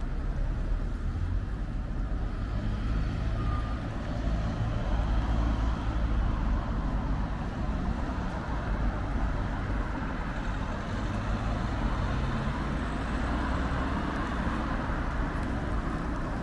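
City street traffic: a steady low engine rumble from motor vehicles close by, with road noise that swells about midway through and eases off towards the end.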